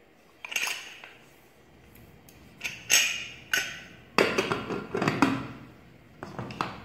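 A pressure cooker's lid being put on and closed: a run of sharp metal clanks and clinks, coming thickest about four to five seconds in.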